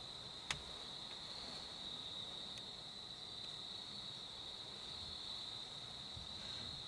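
Crickets chirring in a steady high-pitched chorus, with a single sharp click about half a second in.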